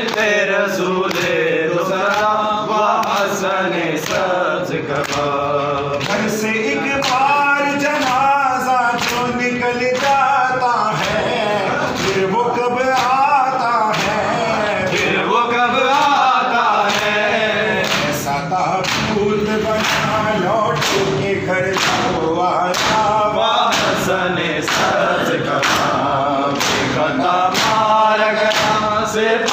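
Male reciter singing a noha (Shia lament) unaccompanied, with a group of men singing along, over a steady rhythm of open-hand chest-beating (matam) slaps.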